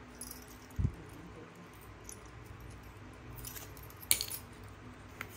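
Small metal hand tools being handled, with light clinks and rattles: a dull knock about a second in, and a sharp metallic click about four seconds in.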